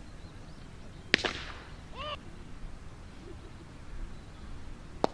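A pitched baseball smacking into the catcher's leather mitt with a sharp crack about a second in, then a brief call from a voice, and another sharp pop of ball into glove near the end.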